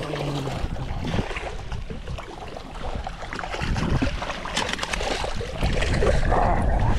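Water splashing and wind rumbling on the microphone while a hooked bass is fought to the boat, getting louder near the end.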